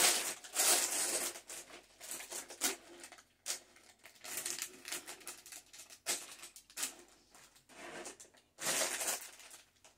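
Sealed plastic bags of Lego pieces being handled and sorted on a table, crinkling and rustling in irregular bursts, loudest at the start and again near the end.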